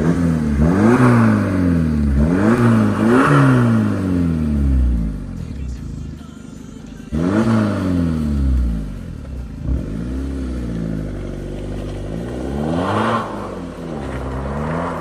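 Volkswagen Golf Mk6 engine and exhaust being blipped from idle, the pitch rising and falling sharply several times, three quick revs in the first few seconds and more later, before the car pulls away near the end.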